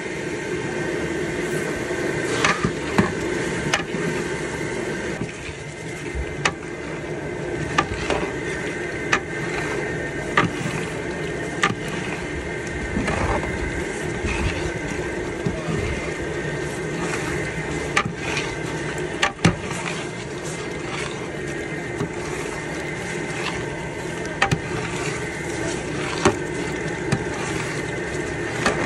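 Onions and masala frying in a large aluminium pot over a gas burner: a steady sizzle and burner hiss, with irregular metallic clanks and scrapes, one every second or two, from a long ladle stirring against the pot.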